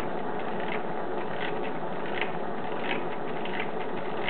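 Propane torch hissing steadily, turned up high under a tin-can Stirling engine. The engine is running slowly, with a light click about every three-quarters of a second as it turns over.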